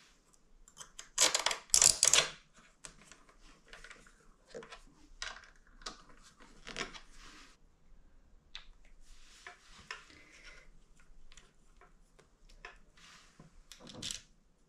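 Small metal parts of a motorcycle's Brembo front brake caliper clicking and rattling as they are worked by hand during a brake pad change, with a loud clatter about a second in and another near the end.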